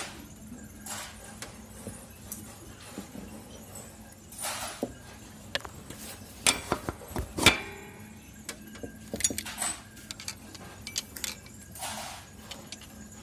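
Hand tools clicking and clinking on metal engine parts as an L-wrench is fitted to a 12 mm bolt by the timing belt tensioner. The clinks are scattered and irregular, the loudest a sharp clank a little past the middle, with a couple of short scraping noises.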